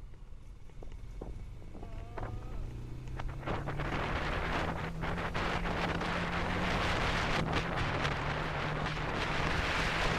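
Royal Enfield Himalayan's single-cylinder engine running as the motorcycle rides along, with wind buffeting the microphone. About three and a half seconds in, the engine note rises a little and the wind noise grows louder as the bike picks up speed.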